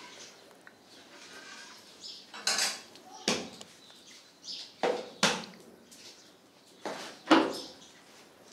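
Small metal tins and steel kitchen utensils clinking and clanking as they are handled and a tin's lid is opened. There are about six sharp metallic knocks, the loudest near the end.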